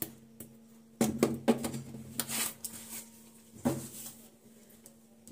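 Knocks, clinks and rustling of steel kitchen bowls and utensils being handled, loudest about a second in and again near four seconds, over a steady low hum.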